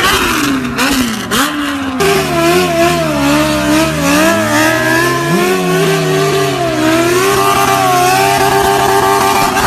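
Motorcycle engine revving, its pitch rising and falling repeatedly, with an abrupt change about two seconds in.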